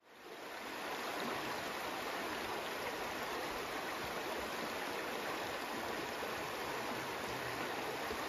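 Rushing water of a shallow, rocky trout stream running over riffles: a steady rush that fades in over the first second.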